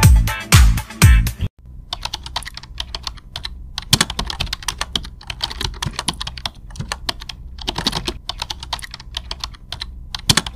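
Dance-style intro music with a heavy beat cuts off about a second and a half in. It is followed by rapid, irregular computer-keyboard typing clicks.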